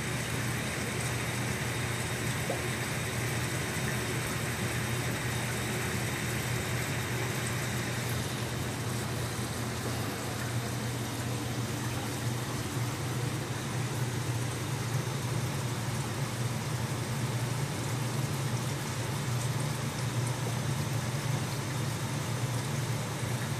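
Steady low hum with a hiss of moving water from running aquarium equipment; the higher hiss eases a little about eight seconds in.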